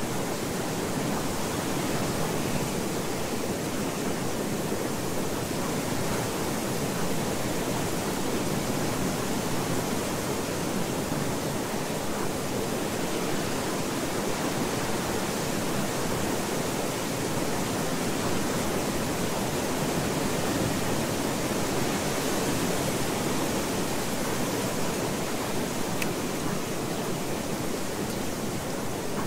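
Steady, even rushing noise with no breaks or changes: the masking sound of a subliminal affirmation track.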